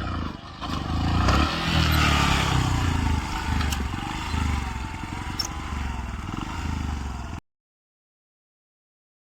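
Motorcycle running, with clattering and scraping noises over a rhythmic low engine pulse. The sound cuts off abruptly to dead silence about seven seconds in.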